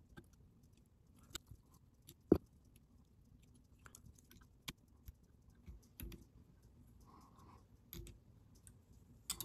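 Faint hand-handling noises at a fly-tying vise while dubbing is worked onto the thread: scattered small clicks and taps, the sharpest a little over two seconds in.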